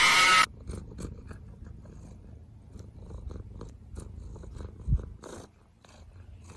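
A cat's loud meow, cut off abruptly after about half a second. Then a cat sniffing right at the microphone: quick short snuffles over a low steady rumble, with a thump about five seconds in.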